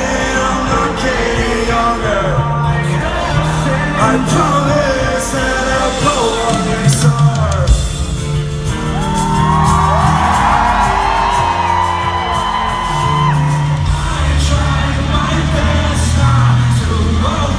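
Live rock concert music: a band playing, a lead singer, and a crowd shouting and whooping along, with a swell of many voices singing together near the middle.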